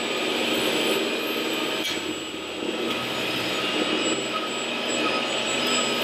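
Steady mechanical hum and whir of radio-controlled model trucks and construction machines running, with a few thin steady high tones in it.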